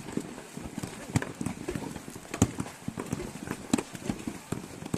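A quick, uneven series of knocks and clicks, hard objects striking one another several times a second, with a few sharper cracks about a second, two and a half seconds and nearly four seconds in.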